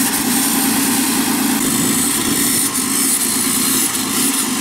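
Off-road buggy's engine running steadily at low revs as it creeps through mud.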